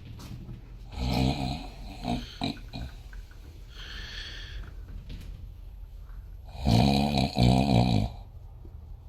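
A man snoring in his sleep: two loud snores, about a second in and again about seven seconds in, with a quieter breath between them.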